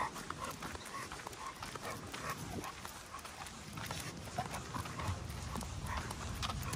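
Steady rhythmic footsteps on pavement, about three taps a second, from an American Bully-type pit bull trotting and the person walking behind it.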